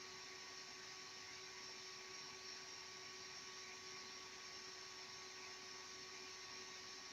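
Faint steady hum with a hiss, holding a few constant tones and never changing.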